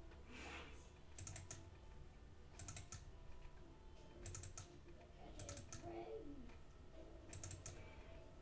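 Faint clicking of a computer mouse button: five quick double-clicks, spaced about one to two seconds apart.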